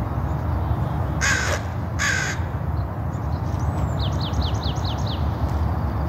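A crow cawing twice, short harsh calls about a second apart. About four seconds in a small bird gives a quick run of about seven downward-sliding chirps, over a steady low rumble.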